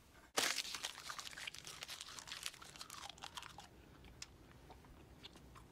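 A person chewing and crunching food close up: a dense run of crisp crunches over the first few seconds, thinning to a few faint clicks near the end.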